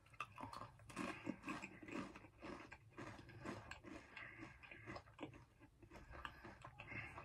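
A Pringles Multigrain crisp being bitten and chewed: faint, irregular crunching, several crunches a second.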